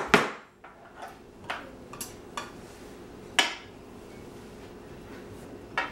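Knife blade clinking and scraping against the rim of a pie plate as the overhanging pie crust is trimmed off. It makes a string of short, sharp clinks at uneven intervals, loudest at the very start and about three and a half seconds in.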